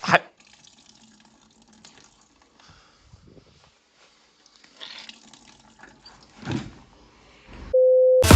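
Faint water sloshing and dripping from laundry being handled after a mini washing machine's spin cycle, with a few soft swells. A short steady beep sounds near the end.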